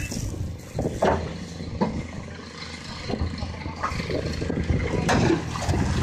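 Excavator's diesel engine running under load, with a few sharp knocks and cracks of stone and steel as its bucket pushes a sawn marble block away from the quarry bench.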